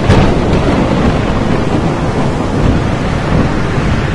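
Thunderstorm sound effect: a sharp thunder crack just at the start, then a loud, steady rumble of storm noise.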